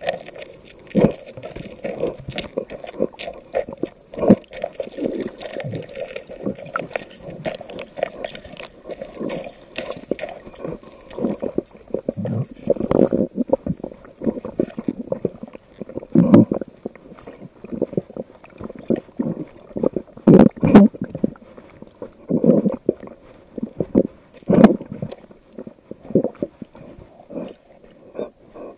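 Muffled underwater gurgling and sloshing, heard through a camera held under the water, with irregular dull knocks and a few louder thumps scattered throughout.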